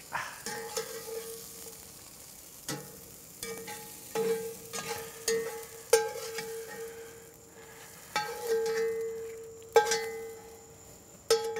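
A metal utensil knocking and scraping against a hot pan of sizzling peppers and onions as they are scooped out, about a dozen knocks. Each knock leaves the pan ringing briefly.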